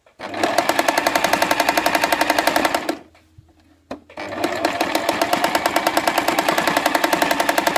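Electric sewing machine running at speed, stitching through fabric with a rapid, even clatter of the needle. It runs in two stretches, stopping for about a second near the middle before starting again.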